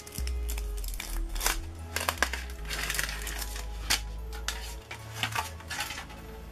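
Foil wrapper of a giant Kinder Surprise chocolate egg crinkling and crackling as it is peeled off by hand, in many quick sharp crackles that thin out near the end. Background music with a steady low bass plays underneath.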